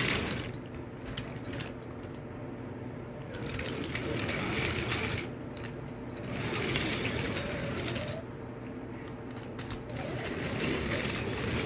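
Wooden toy train cars rolling along wooden track: a steady, rattling rumble that swells and fades several times, with scattered clicks as the wheels cross the track joints.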